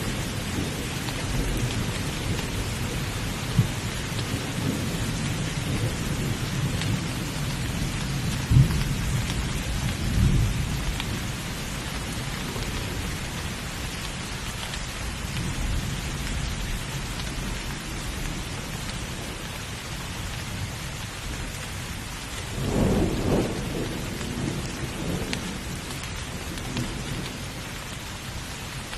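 Steady rain falling hard, with rolling thunder rumbling through the first ten seconds or so and a few sharp cracks before it fades. A second roll of thunder swells about three-quarters of the way through.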